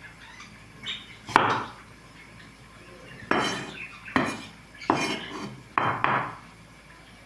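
Dishes and cutlery clattering: about seven separate sharp knocks and clinks at irregular intervals, each ringing briefly.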